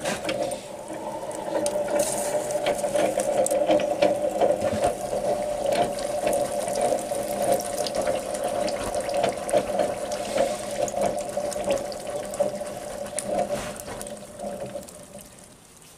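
Red-hot steel straight-razor blade, coated in clay, quenched in used motor oil for hardening: the oil sizzles and bubbles with a constant crackle, dying away near the end.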